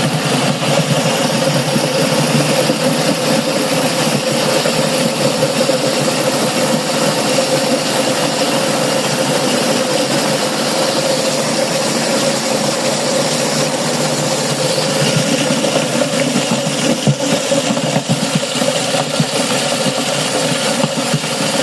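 Engine-driven grass chopper (chaff cutter) running steadily, with a constant hum and a few brief knocks about two-thirds of the way through.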